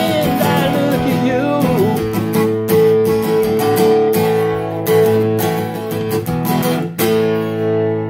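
Epiphone acoustic guitar strummed through the closing bars of a song, with a wordless voice over the first two seconds. The last chord is struck about seven seconds in and left ringing.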